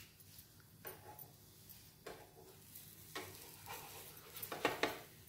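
Slotted metal turner scraping and tapping against a nonstick frying pan as it is worked under a thin pancake to turn it: a few faint, scattered scrapes, the loudest cluster near the end.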